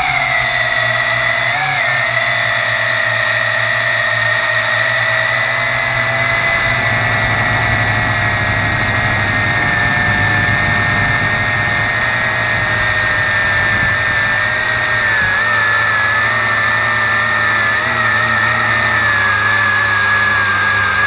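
Tarantula X6 quadcopter's electric motors and propellers whining steadily, heard from its onboard camera, the pitch sinking slowly and splitting into two close tones near the end.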